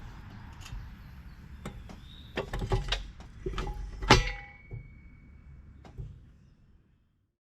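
Metal clanking and knocking: a burst of sharp hits about two to four seconds in, the loudest leaving a short metallic ring, over a low steady rumble. It fades out near the end.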